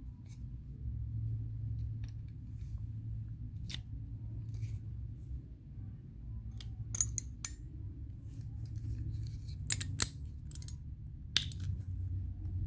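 Crimping tool being squeezed onto an RJ45 plug on a LAN cable: a scattering of sharp clicks and snaps, several in quick succession in the second half.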